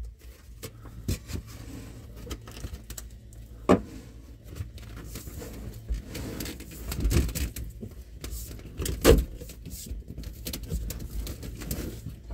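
Scattered knocks, clicks and rattles of hands handling tools and materials, with sharper knocks about four seconds and nine seconds in, over a steady low hum.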